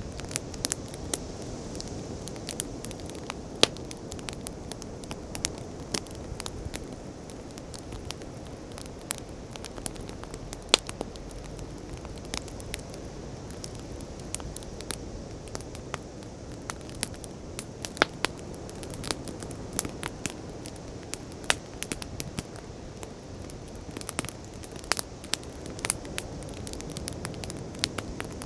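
Wood campfire crackling, with sharp irregular pops several times a second, over a steady low rush of sea waves.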